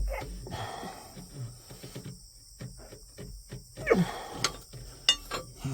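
A man grunting and groaning with effort, in short falling grunts, amid scattered clicks and scrapes as a hydraulic hose is worked loose.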